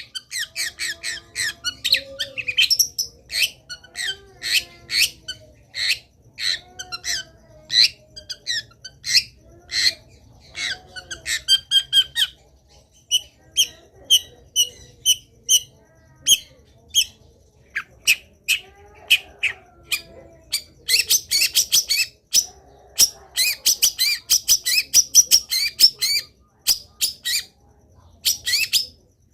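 Long-tailed shrike (cendet) singing vigorously: fast strings of sharp, scratchy notes packed with mimicked calls of other birds, easing into a sparser run of clearer whistled notes around the middle before the dense chatter picks up again.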